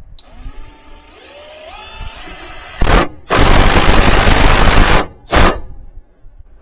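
Power driver driving a fastener. A faint motor whine rises in pitch as the trigger is eased in, then there is a short loud burst, a long loud run at full speed and one more short burst near the end.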